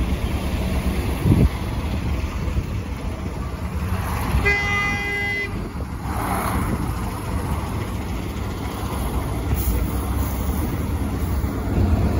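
A bus engine idling close by with a steady low rumble. About four and a half seconds in, a vehicle horn gives one toot lasting about a second.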